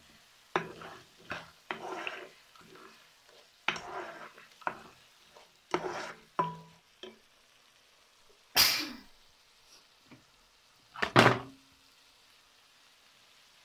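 Slotted spatula stirring and scraping a thick frying tomato stew in a nonstick pan. It makes irregular short scrapes and knocks against the pan, with a longer scrape past the middle and a louder knock near the end.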